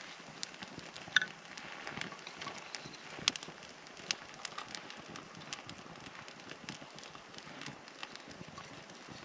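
Campfire burning and crackling, with irregular pops and two sharper, louder snaps about a second in and about three seconds in.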